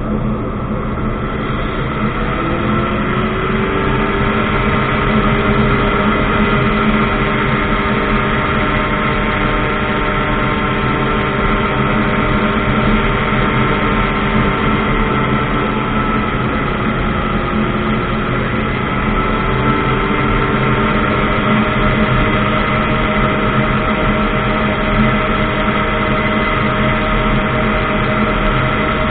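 Ultralight aircraft's engine and propeller running steadily. The engine's pitch rises about two to four seconds in and dips briefly a little past the middle.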